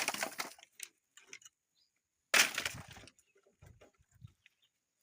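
Firewood logs thrown down onto a pile, landing in short clattering crashes: one at the start, one about two and a half seconds in, and another at the end.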